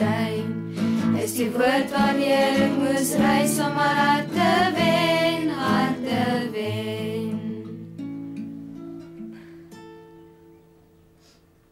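A small children's choir singing with acoustic guitar accompaniment. The voices stop about seven seconds in, and the last guitar notes ring on and fade away.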